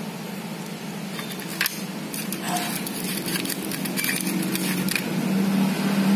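Scattered light clicks and crinkles of small objects being handled, between about one and five seconds in, over a steady low hum.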